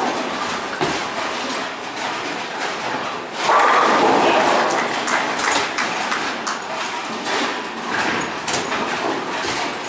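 Bowling alley background: balls rolling and pins clattering, with scattered knocks and a loud burst of noise lasting about a second, starting about three and a half seconds in.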